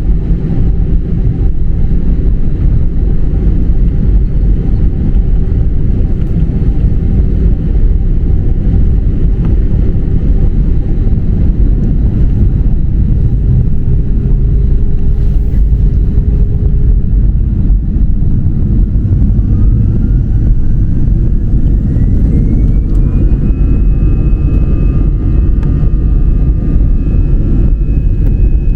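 Jet airliner engines at takeoff thrust: a loud, steady rumble, with a whine that rises in pitch over a few seconds near the end and then holds.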